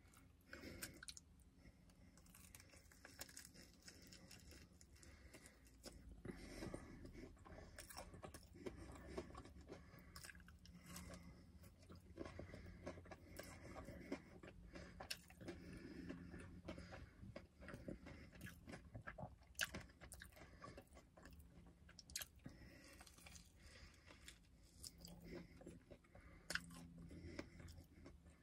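Faint chewing and crunching of a Korean corn dog's crispy fried coating, with irregular crisp crunches throughout.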